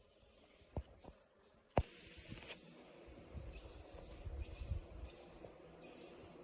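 Footsteps on a debris-strewn floor: a few sharp clicks and ticks in the first two seconds, then a stretch of soft, uneven scuffing and low thuds. A faint steady high hiss runs underneath.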